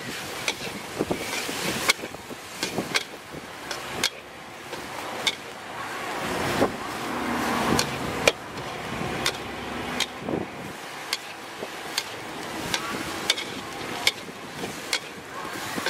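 Metal wok ladle clanking and scraping against a steel wok as fried rice is stir-fried, about one or two strikes a second, over a steady hiss.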